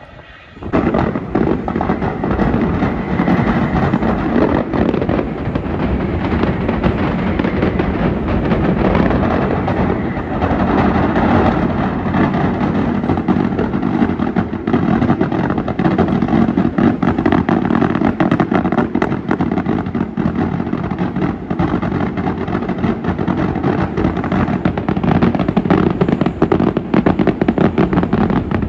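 Mascletà: a dense, unbroken string of loud firecracker bangs bursting in rapid succession, starting suddenly about a second in.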